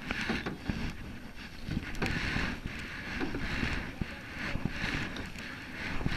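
Canoe paddles stroking through lake water beside an aluminium canoe, a swish of water with each stroke and scattered light knocks, over wind rumbling on the microphone. Heard through a waterproof camera case.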